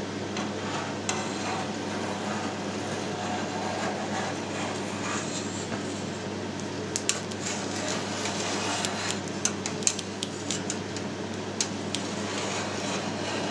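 Wire cheese harp being drawn through soft curd in a stainless-steel pan, with scattered sharp metallic clicks and knocks, thickest in the second half, as the harp's frame hits the pan's sides. A steady low hum runs underneath.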